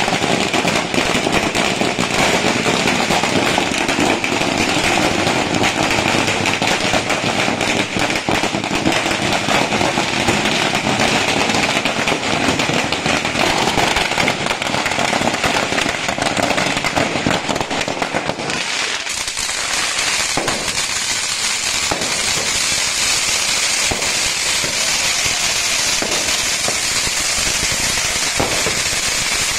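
A string of firecrackers bursting in a long, rapid, continuous crackle. About eighteen seconds in, it gives way to the steady high hiss of ground fountain fireworks spraying sparks, with a few scattered pops.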